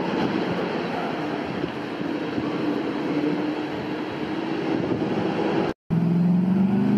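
Steady rumble of vehicle engines and street noise. A brief dropout near the end marks a cut, after which a nearby engine runs louder with a slowly rising pitch.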